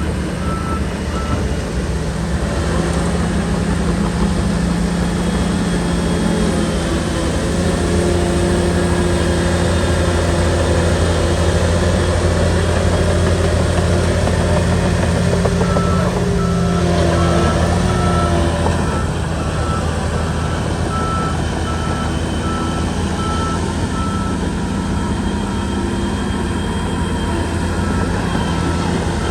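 Bulldozer's diesel engine running steadily under load, louder through the middle stretch. A reversing alarm beeps at an even pace near the start and again from about halfway on.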